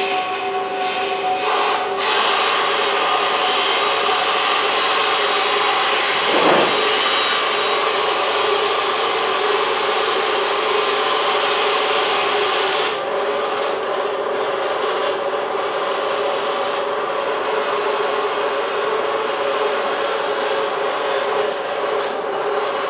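Storm-force cyclone wind on a phone video's soundtrack, played through the room's loudspeakers: a loud, steady rushing roar with a few held whistling tones and a brief swooping note about six seconds in.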